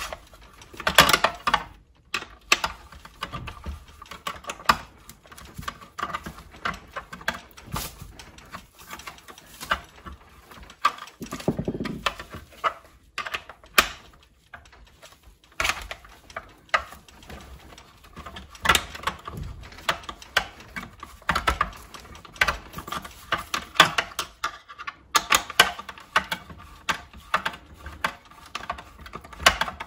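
Hand screwdriver turning the screws that hold a plastic flyscreen to a motorcycle headlight cowl: irregular clicks, taps and short scrapes of the tool and the hard plastic parts being handled.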